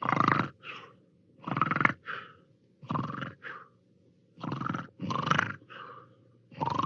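Cartoon snoring sound effect: repeated snores, each a loud snort rising in pitch followed by a shorter, fainter breath, coming about every one and a half seconds.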